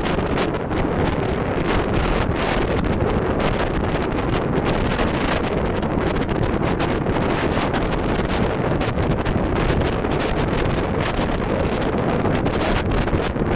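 Wind buffeting the microphone of a camera on a moving bicycle: a steady rush of air noise with rapid flutter.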